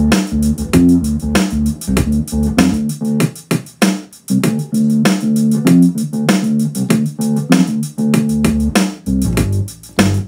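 A recorded music track with a bass line and drums, played through a full-range PA speaker and a Tapco by Mackie SW10 active subwoofer. The deep bass drops away about three seconds in and comes back near the end, as the subwoofer is taken out and brought back in.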